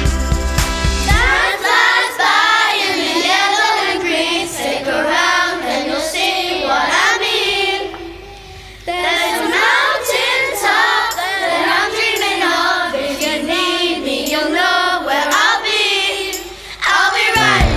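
A group of young voices singing unaccompanied: the band's drums and bass stop about a second in and come back in near the end, with a short break in the singing about halfway through.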